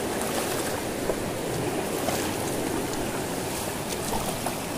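Shallow rocky stream running fast over and between boulders: a steady rush of flowing water.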